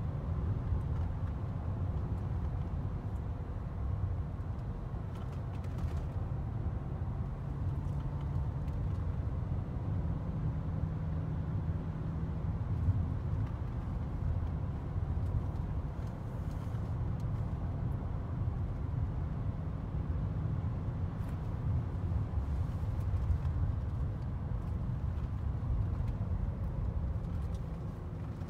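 Inside the cabin of a 2000 BMW E39 540i, its 4.4-litre V8 and the tyres give a steady low rumble while the car drives along at an even pace.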